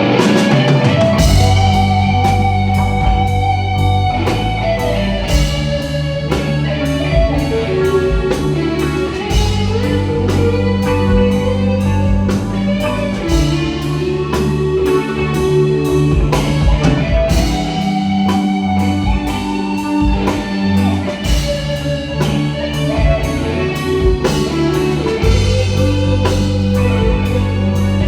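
Instrumental passage of a song: a guitar carries the melody over bass and a drum kit keeping a steady beat, with no singing.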